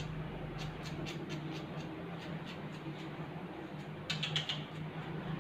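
Grooming scissors snipping a dog's fur in quick regular snips, about four a second, over a steady low hum. About four seconds in there is a brief louder rustle as the dog moves.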